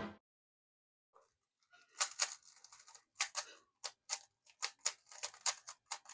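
Rubik's cube being turned by hand: a run of sharp plastic clicks at an uneven pace, roughly two a second, starting about two seconds in.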